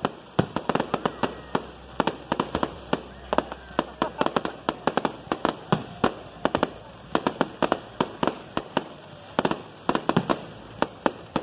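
Fireworks going off in a rapid, irregular barrage of sharp bangs and pops, several a second.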